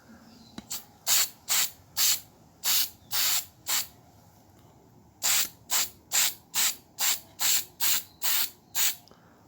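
Aerosol can of metallic red spray paint hissing in short bursts, about two a second, in two runs with a pause of about a second and a half in the middle.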